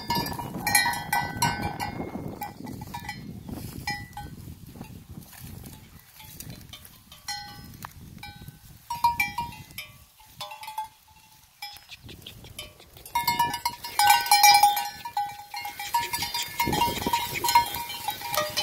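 A sheep's neck bell (cencerro) clanking on and off as the sheep move. It goes quiet for a couple of seconds about halfway, then rings more often near the end.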